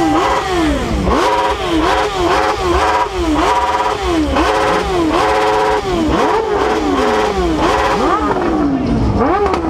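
Motorcycle engine revved again and again with quick throttle blips, about one a second, each rising fast in pitch and dropping away.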